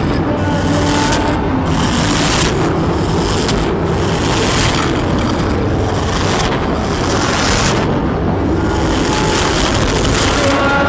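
Experimental noise-music recording: a dense wall of distorted noise that stays steady in loudness, with a few faint held pitches under it and the top hiss briefly dropping out every second or so.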